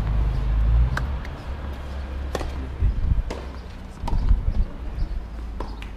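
Tennis ball being bounced on a clay court before a serve: a handful of short taps, spaced irregularly about a second apart, over a steady low rumble of wind on the microphone.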